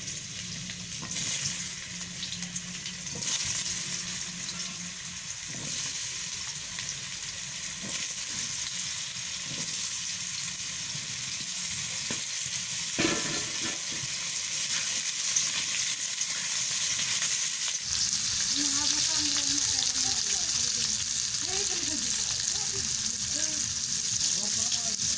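Food frying in hot oil in a pan, a steady sizzle with stirring, growing louder about two-thirds of the way in, with a single sharp click near the middle.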